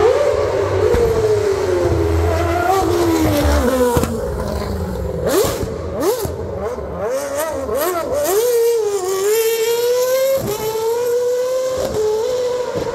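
Rally car engine revving hard. The note sinks slowly at first, swoops sharply up and down in quick blips through the middle, then holds at a fairly steady high rev.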